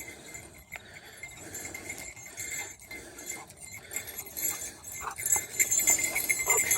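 A dog's collar tags jingling as the dog trots up, growing louder near the end.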